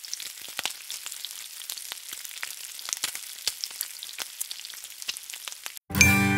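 Food frying in hot oil: a steady sizzling hiss with many small crackling pops. It cuts off shortly before the end, and music with ringing sustained tones begins.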